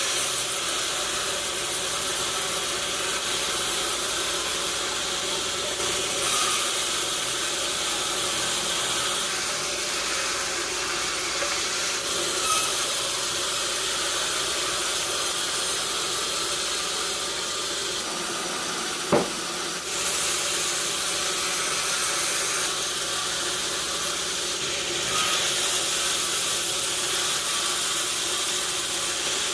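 Sawmill saw cutting timber: a steady hissing noise whose tone shifts every few seconds, with one sharp knock about two-thirds of the way through.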